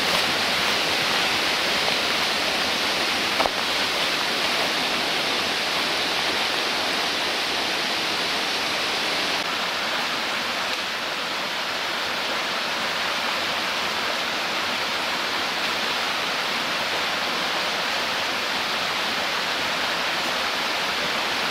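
Steady rushing of a fast, rocky river, its water running over boulders.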